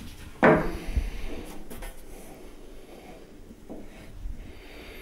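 Handling sounds at a table saw whose blade is stopped: one solid clunk about half a second in, then quiet knocks and rubbing as the timber workpiece is set against the blade to check the cut height.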